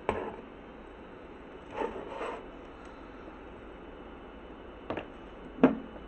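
Handling noises on a workbench: a short rub at the start and brief rubbing and brushing about two seconds in, then two sharp taps near the end, the second one louder, as multimeter probes are set against the circuit board.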